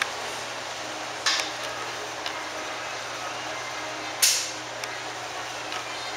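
Bus air brakes hissing twice in short sharp bursts, one about a second in and a louder one about four seconds in that fades quickly, over steady outdoor background noise.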